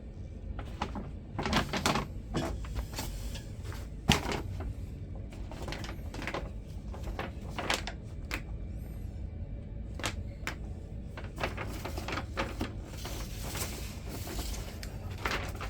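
Handling of a sneaker box: scattered knocks, taps and rustles of cardboard and paper, with one sharp knock about four seconds in, over a steady low hum.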